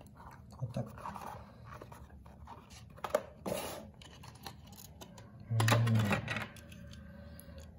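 Plastic blister packaging and a small cardboard box being handled and opened: rustling, crinkling and light clicks, with a louder plastic crackle about three and a half seconds in.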